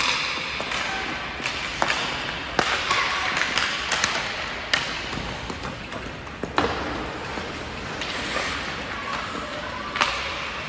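Ice hockey being played: skates scraping across the ice under about half a dozen sharp, irregularly spaced clacks of sticks and puck.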